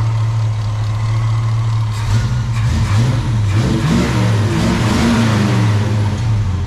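International Harvester Travelall V8 running through a new X-pipe and Flowmaster muffler, idling smooth as a sewing machine. About two seconds in, the throttle is blipped a few times, the revs rising and falling, and it settles back to idle near the end.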